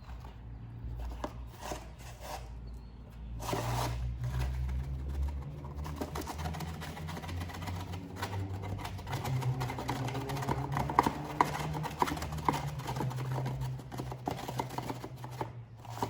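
Baking soda and water being stirred into a thick paste in a container: rapid small scraping and clicking, busier from about three seconds in, over a low steady hum.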